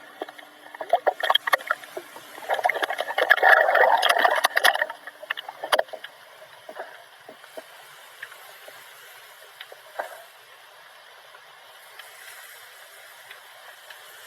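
Underwater sound picked up through a camera housing: scattered crackling clicks, with a louder rush of bubbling water from about two and a half to five seconds in, then a faint hiss.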